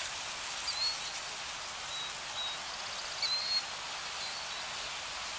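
Nature ambience of steady rain-like hiss, with a few short, high bird chirps scattered through it.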